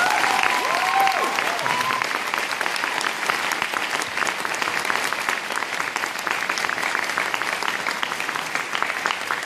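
A large audience applauding, a dense steady clapping that eases off slightly toward the end, with a couple of whoops about a second in.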